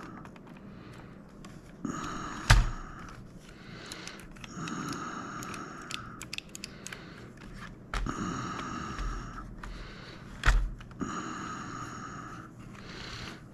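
Hands working on plastic joystick parts and tools on a tabletop, with two sharp knocks, the louder one near the end. Under it, a rasping sound lasting a second or two comes back about every three seconds.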